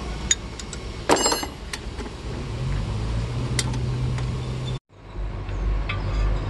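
A steel spanner clinks against the differential's crown wheel and carrier bolts, with one sharp ringing metal clank about a second in and a few lighter clicks. Behind it runs a steady vehicle engine hum. The sound drops out briefly near the end.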